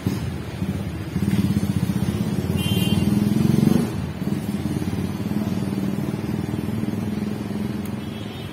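Motorcycle engine running with a rapid low pulsing beat. It swells louder for a couple of seconds from about a second in, drops back abruptly, then runs on steadily.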